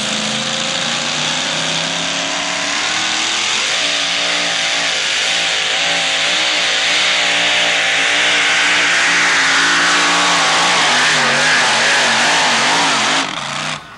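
Supercharged engine of a Dodge Dakota two-wheel-drive pulling truck at full throttle, hauling the sled down the track. The pitch climbs at first, then wobbles up and down several times a second. The sound cuts off near the end.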